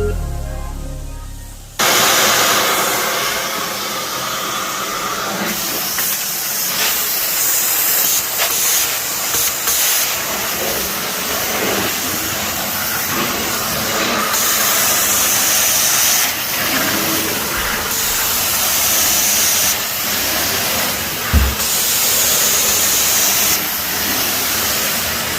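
Hot-water carpet extraction wand working off a truckmount: a steady hiss of spray and vacuum suction that shifts in tone as the wand is pushed and pulled across the carpet, starting about two seconds in as music fades out.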